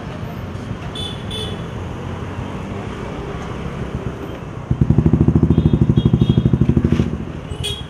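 Street traffic noise with a motorcycle engine running close by, loudest from about five to seven seconds in as a fast, even pulsing. A few light clinks sound over it.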